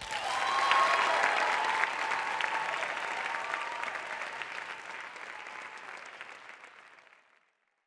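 Audience applauding. The clapping swells right away, is loudest about a second in, then fades away steadily over the next several seconds.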